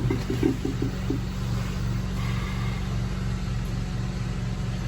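An engine running steadily, a low pulsing hum, with a short choppy buzz in the first second.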